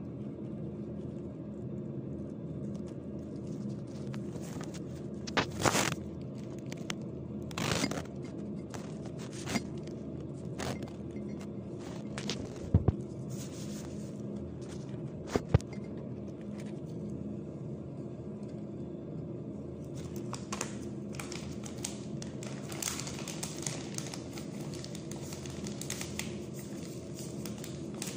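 Scattered crinkling, clicks and scrapes from gloved hands working plastic gloves, a plastic pouch and food in a glass dish, with a denser run of crinkles in the second half, over a steady low hum.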